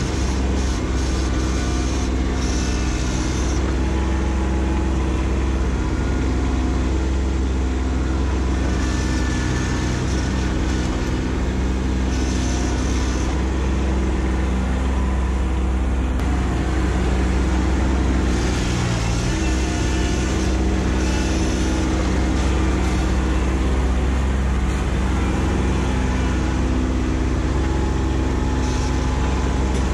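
Kubota compact tractors' diesel engines running steadily under loader work, the engine note shifting briefly about two-thirds through.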